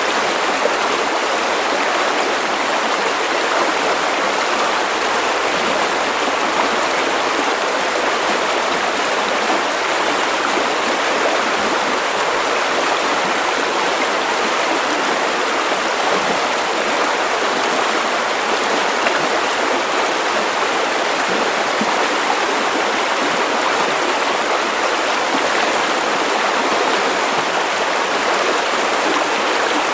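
River water running over stones, a steady rushing babble with no breaks.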